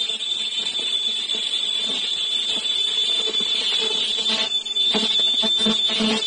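Semi-automatic KN95 mask body making machine running, with a steady high-pitched whine from its ultrasonic welding unit. From about five seconds in, a low knocking repeats about three times a second.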